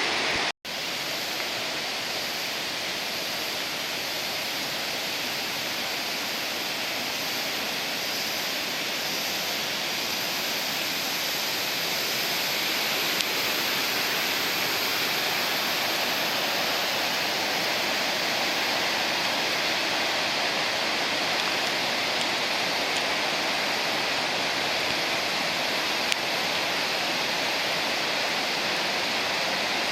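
Steady rushing of Senpiro Falls, a large waterfall, with the sound cutting out for a split second just after the start.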